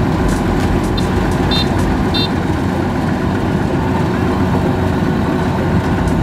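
Diesel engines of a Kubota DC-93 combine harvester and a two-wheel tractor running steadily and loudly, with a few brief high chirps about one to two seconds in.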